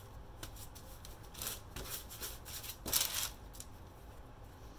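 Hands rolling French bread dough on a parchment-paper-lined baking tray: soft rubbing and paper rustling, with a few brief scratchy swishes, the loudest about three seconds in.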